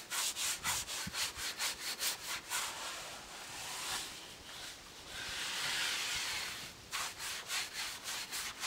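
Hand-sanding a wooden door: quick back-and-forth strokes on the wood, about four a second, giving way in the middle to a longer steady rub before the quick strokes return.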